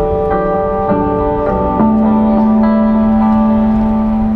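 Electric guitar played through effects in long sustained, organ-like notes. The layered notes shift every half second or so, then one low note is held from about two seconds in.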